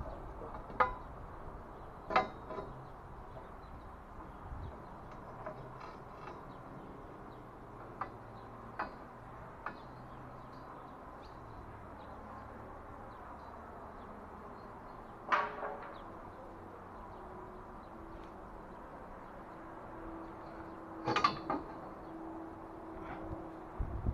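Occasional knocks and clanks of HAKI scaffold parts being handled, the loudest a few seconds apart near the middle and near the end.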